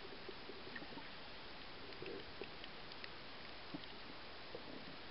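Underwater ambience picked up by a submerged camera: a steady hiss with scattered faint clicks and crackles.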